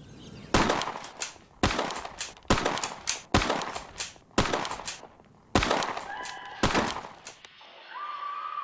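A long gun firing about eight shots in irregular succession, each a sharp crack with a short echoing tail.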